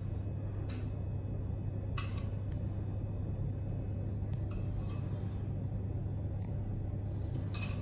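A metal spoon clinking lightly against a ceramic bowl a few times, scooping out herb oil, over a steady low hum.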